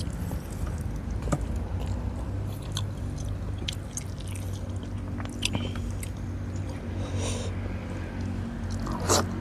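Close-up eating sounds: chewing, with scattered small clicks and scrapes of a spoon and fingers against the plates as rice and fish soup are eaten by hand. A steady low hum runs underneath, and a louder short sound comes near the end.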